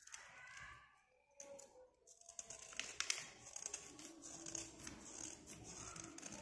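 Snap-off utility knife blade scraping the surface of a white slate pencil: a quick run of dry, scratchy strokes that starts about two seconds in.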